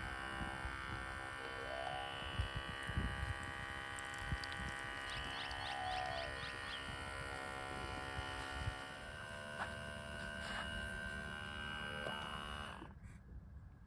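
OutIn Nano portable espresso machine's pump buzzing steadily as it pushes pre-heated hot water through the ground coffee. It cuts off abruptly about a second before the end, as the brew cycle finishes.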